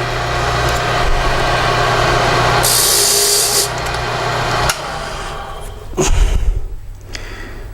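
Motorised key-cutting machine running while its cutter mills a depth cut into a brass Schlage key, with a sharper high hiss for about a second as the cutter bites. The motor shuts off about two-thirds of the way through, followed by a single clunk.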